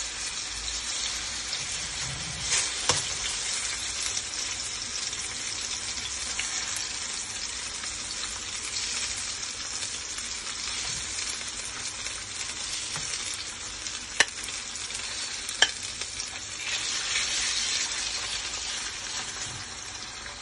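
Seasoned chicken breast strips frying in hot olive oil in a pan: a steady sizzle, a little louder about three-quarters of the way through. A few sharp clicks come from the metal tongs as more strips are laid in.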